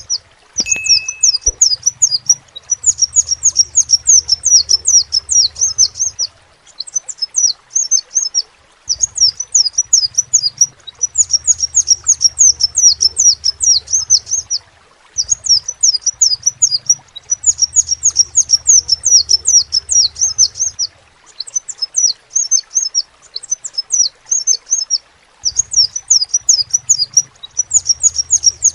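Crimson sunbird (sepah raja) singing: fast strings of high, thin chirps in phrases a few seconds long, broken by short pauses.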